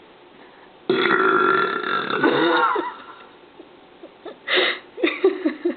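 A woman's long, loud belch lasting about two seconds, its pitch dropping toward the end. A few short, quieter sounds follow near the end.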